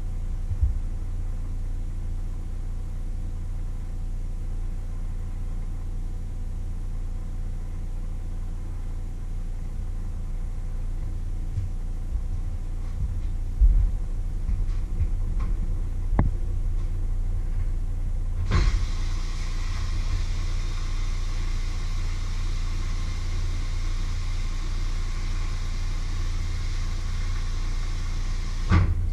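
Kitchen tap running into the sink for about ten seconds, starting and stopping abruptly, over a steady low hum, with a few light knocks of kitchenware before it.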